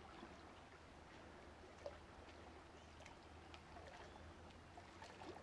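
Near silence: a faint steady low hum under soft hiss.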